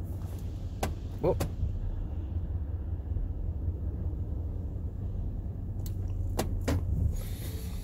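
Steady low rumble of car wash machinery and the vehicle, heard from inside the van's cabin at the tunnel entrance, with a few sharp clicks about a second in and again around six to seven seconds.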